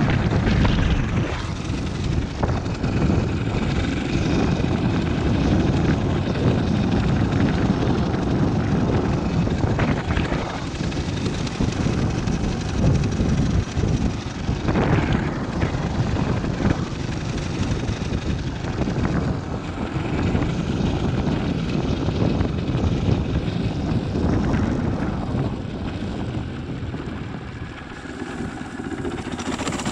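Motorcycle riding along at speed: wind buffeting the microphone over the engine's steady drone, easing a little near the end.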